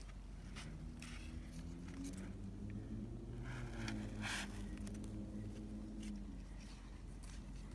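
Faint rustling and scraping of grass and clothing in short strokes, over a low engine hum from a vehicle that drifts up and down in pitch.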